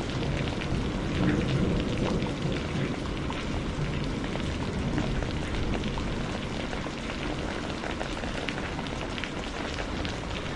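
Steady rain falling, a continuous hiss full of small individual drop hits. A low rumble swells and fades in the first couple of seconds.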